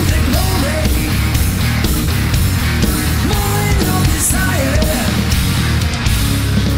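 A heavy metal band playing live: a distorted seven-string electric guitar lead melody with sliding notes over bass guitar and drums, loud and steady.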